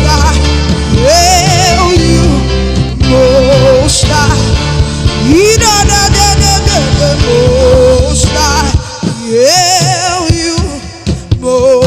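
Live gospel worship music: a sung melody, held notes with a wide vibrato, over band accompaniment with a steady low bass. The bass and low instruments drop out near the end, leaving the voice over lighter backing.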